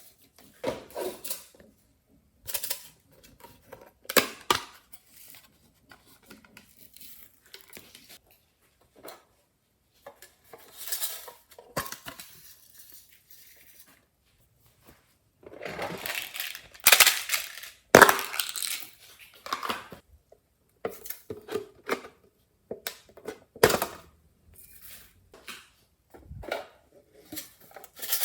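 Glossy slime being worked and mixed with clay and glitter, giving irregular sticky clicks, pops and crackles, busiest about halfway through.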